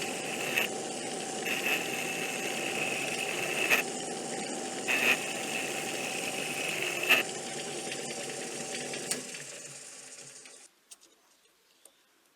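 Metal lathe running while a boring bar cuts the inside of a steel bar, with a steady high cutting tone that breaks off briefly a few times and several sharp clicks. The lathe winds down and stops a little before eleven seconds in.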